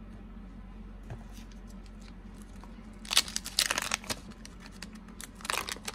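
Cardboard baseball cards being handled and flicked through, with a cluster of crisp rustles and clicks about three seconds in and another near the end, over a faint steady hum.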